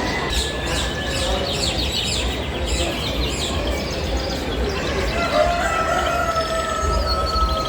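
Many chickens and roosters calling at once in a poultry shed, a dense din of clucks and chirps. A long drawn-out rooster crow comes in about five seconds in.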